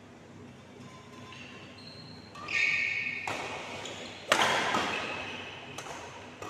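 Badminton rally: racket strings striking the shuttlecock three times as sharp cracks that ring on in the hall. The loudest is a jumping smash about four seconds in. Short rubber-sole squeaks on the court floor come just before the first hit.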